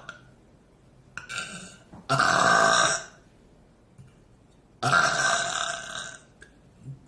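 A girl burping loud, long burps twice, each about a second long, brought up by very fizzy club soda, with a brief softer sound about a second in before them.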